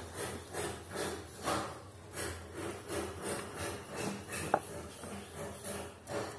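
Graphite pencil scratching on paper in short, repeated strokes, about two or three a second, as small lines are drawn. One sharp click sounds about four and a half seconds in.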